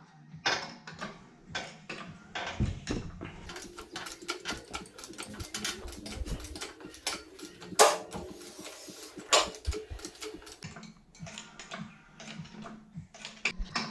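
Irregular clicks, knocks and metal clanks from a hydraulic engine crane being readied and its handle pumped to lift an engine, with the loudest clank about eight seconds in.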